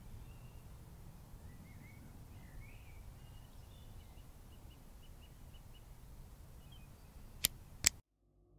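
Faint outdoor background noise with a few soft bird chirps. Near the end come two sharp clicks about half a second apart, and then the sound cuts off abruptly.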